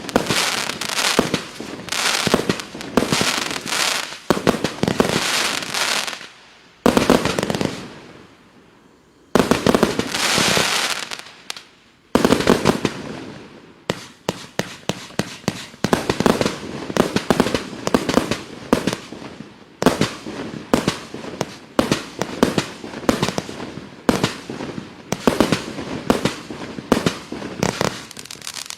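Klasek Firework Show 256, a 30 mm compound firework cake, firing a rapid barrage of shots and bursting shells, several bangs a second, with a brief lull about seven seconds in.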